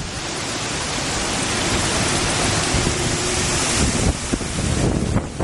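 Tropical-storm wind and rain: a steady, loud hiss with low, uneven rumbling from wind buffeting the microphone. The hiss eases about four seconds in.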